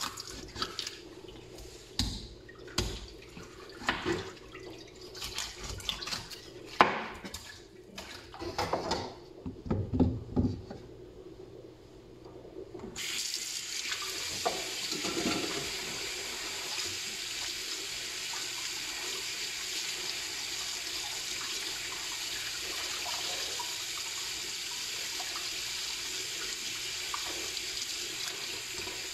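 Irregular knocks and clatter of a raw chicken being cut up on a plastic cutting board. About 13 seconds in, a kitchen tap turns on and runs steadily, splashing onto chicken pieces being rinsed in a metal pot.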